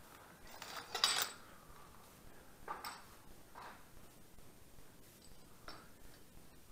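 Hard objects knocking and clinking. A loud cluster comes about a second in, then a few fainter single clinks.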